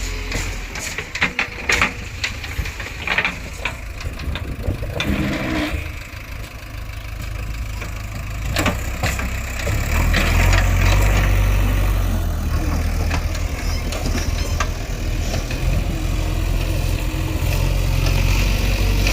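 JCB 3DX backhoe loader's diesel engine running, with a string of sharp knocks over the first half. About ten seconds in the engine gets louder and stays loud, as if working under load.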